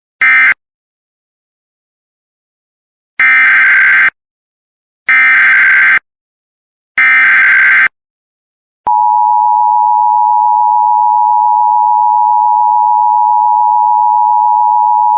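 Emergency Alert System signals. The last short data burst of an end-of-message code comes first, and after a pause the three buzzy SAME header bursts of the next warning follow. About nine seconds in, a single loud, steady attention tone starts and holds.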